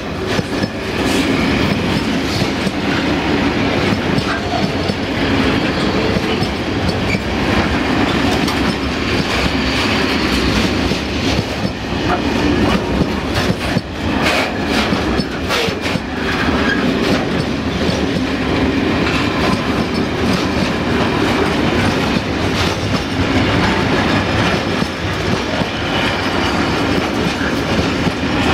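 Freight train of covered hopper wagons rolling past at speed: a steady loud rumble of steel wheels on rail, with clickety-clack and scattered sharp clicks as the wheels cross rail joints.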